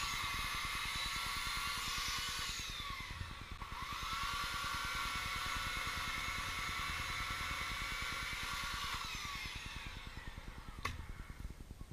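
Kubota B2650 tractor's three-cylinder diesel engine running at high revs with a high whine. The revs drop briefly about three seconds in, climb back, then fall away to a lumpy idle near the end, where a single sharp click is heard.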